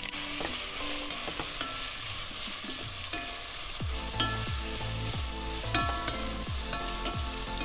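Sliced onions sizzling in hot sunflower oil in a nonstick pot, stirred and scraped around with a wooden spatula.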